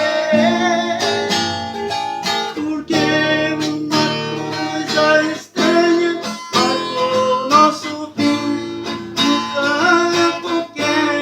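Acoustic guitar playing an instrumental passage between sung verses of a romantic ballad, strummed chords with picked melody lines; a held sung note trails off in the first second.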